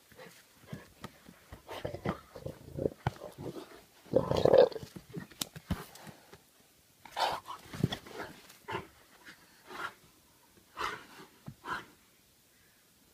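Two jaguars play-fighting, with short irregular bursts of vocal sounds and breaths, the loudest about four seconds in.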